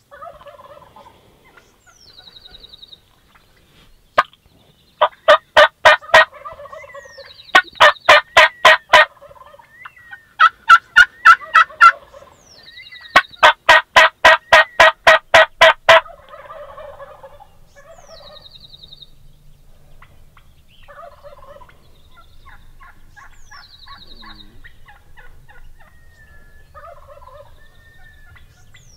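Gould's wild turkey toms gobbling: loud rattling gobbles in four runs between about five and sixteen seconds in. Quieter calls come between the gobbles, and a short high chirp recurs every few seconds.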